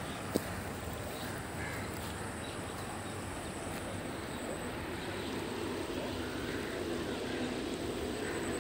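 A sharp click just after the start, then a distant vehicle's low hum rising out of the steady outdoor background and growing louder through the second half as it approaches.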